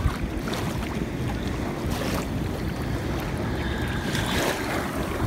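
Steady low wind rumble on the microphone over rushing, lapping shallow water.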